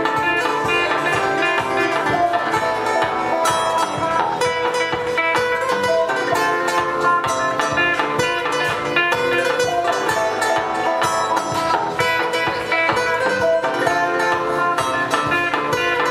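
Live band playing an instrumental passage led by quickly picked guitar, without singing.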